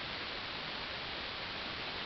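Steady static hiss from a software-defined radio's AM demodulator tuned to a noisy band around 57 kHz, with no tones or rhythm and nothing above about 6 kHz.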